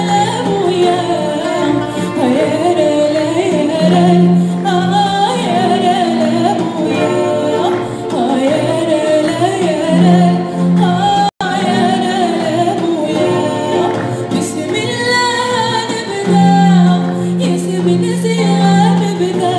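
A woman singing live with a small band, her voice wavering and ornamented over held low notes and acoustic guitar. The sound drops out for an instant about eleven seconds in.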